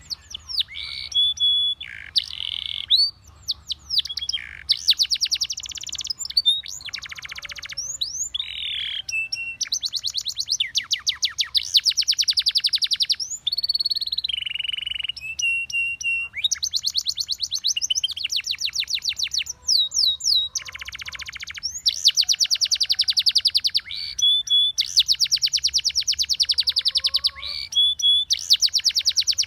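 Spanish Timbrado canary singing a continuous song of fast trills in phrases a second or two long, with short held whistled notes and quick sweeping notes between them.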